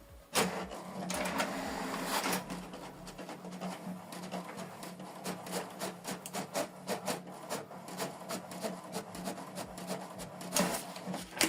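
HP Deskjet 4310 inkjet printer printing a test page. Its mechanism starts about half a second in, louder for the first couple of seconds, then runs as a steady motor hum under a rapid run of clicks and ticks.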